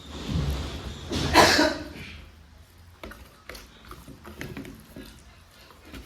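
A person coughs once, a loud rough burst about a second in, then faint small clicks and mouth sounds of eating.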